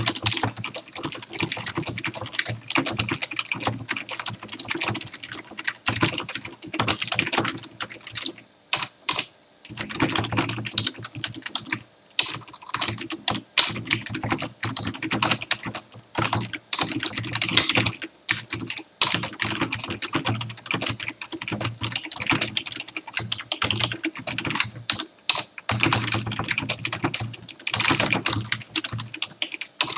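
Computer keyboard being typed on in fast, continuous runs of key clicks, with short pauses between bursts of words.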